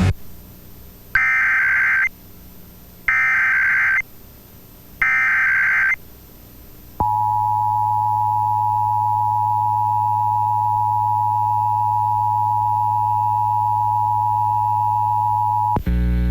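Emergency Alert System header for a required monthly test: three one-second bursts of warbling SAME data tones about a second apart. The EAS two-tone attention signal then sounds steadily for about nine seconds and cuts off abruptly, with a low hum beneath it.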